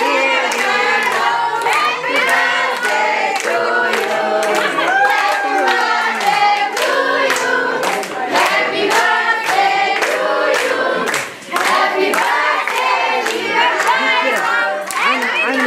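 A group of people singing together and clapping along in time, about two claps a second.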